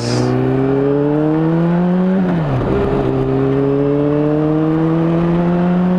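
Honda CBR600RR's inline-four engine under acceleration: the engine note climbs for about two seconds, drops sharply as it shifts up a gear, then climbs slowly again. Heard through a helmet-mounted microphone with wind noise.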